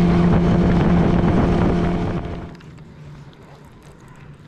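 Fishing boat's outboard motor running steadily with wind rushing over the microphone, dropping away about two seconds in to a much quieter stretch.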